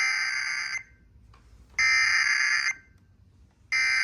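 Emergency Alert System SAME header: three bursts of digital data tones, each just under a second long and about a second apart. They carry the coded alert (event, area and originator) that opens a relayed EAS message.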